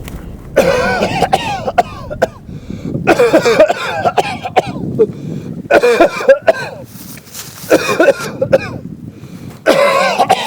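A man coughing and hacking hard in five harsh bouts, each under a second long, about two seconds apart. This is the reaction of a first-time traveller to a sickening jump through time.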